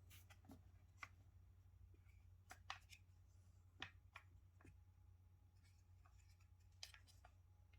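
Near silence with a faint steady hum and a dozen or so small, scattered clicks and taps: light handling of items being unboxed.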